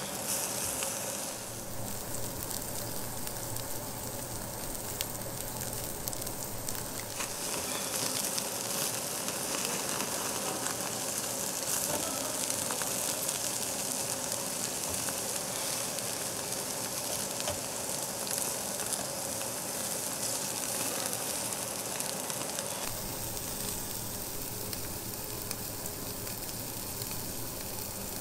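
Thick pieces of pork belly sizzling on a hot slotted grill plate, a steady hissing sizzle of spitting fat that grows stronger several seconds in.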